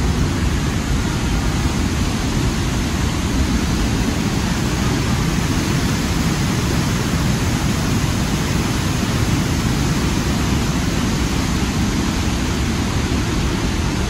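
Waterfall close by: a loud, steady rush of falling water with no breaks.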